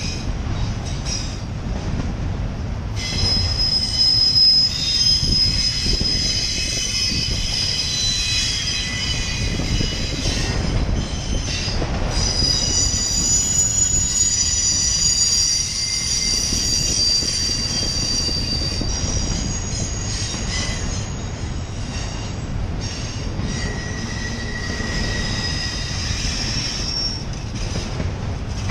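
Empty autorack freight cars rolling slowly past, with a steady rumble of wheels on rail. A high, multi-toned wheel squeal sets in a few seconds in, dies away about two-thirds of the way through, and comes back briefly near the end.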